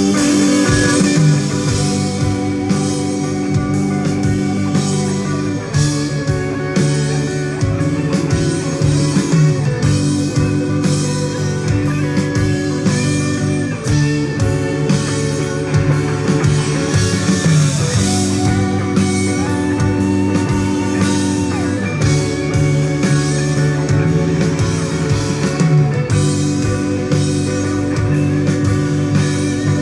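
Instrumental rock passage led by guitar, with sustained and bending guitar notes over bass and drums, and no singing.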